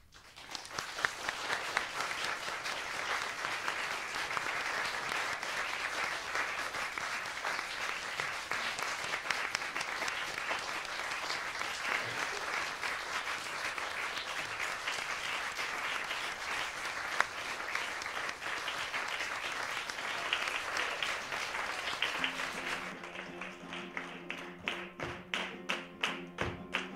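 Audience applauding steadily. Near the end a flamenco guitar starts playing in a sharp, regular rhythm with hand-clapping.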